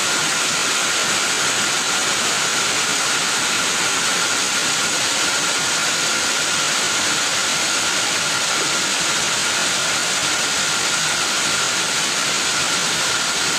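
Very heavy rain pouring down with floodwater running over the ground: a loud, steady, even hiss that does not let up.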